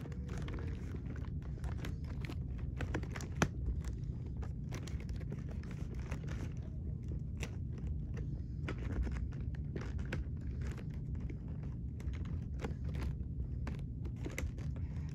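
Muffled handling noise: scattered light clicks and rustles over a steady low rumble, as things are handled close to a covered recording phone.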